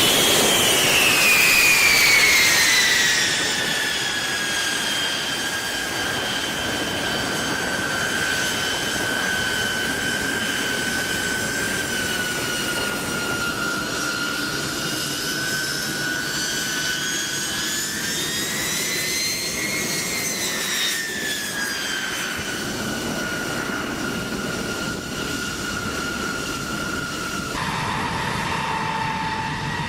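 Jet turbofan engines of a B-52H Stratofortress whining over a steady rush of jet noise. The whine is loudest at the start and falls steeply in pitch over the first few seconds, then holds. It rises and falls again about two-thirds through, and drops to a lower tone after an abrupt cut near the end.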